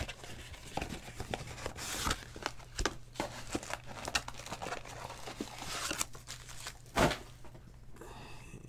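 A cardboard trading-card box of foil-wrapped packs being opened and emptied by hand: rustling, crinkling and tearing of wrapper and cardboard, with a louder knock about seven seconds in.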